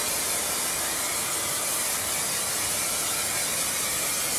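Aerosol can of spray adhesive spraying in a steady, unbroken hiss as glue is coated over a hardboard door panel.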